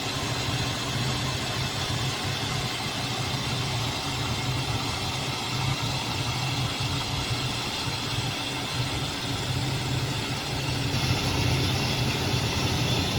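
Matco MTV 5 air-powered suction gun running continuously, a steady loud rush of compressed air with a low hum underneath.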